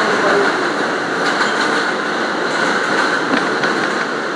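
An R179 subway car running on elevated track, heard from inside the rear car: a steady rumble of wheels on rail with a few faint clicks from the track.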